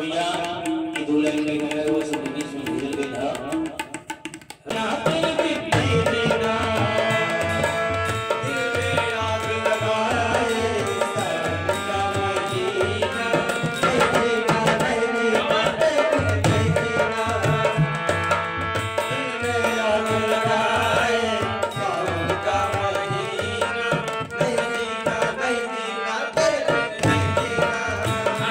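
Background music: a melody over a steady hand-drum beat. It drops away briefly about four seconds in, then comes back fuller.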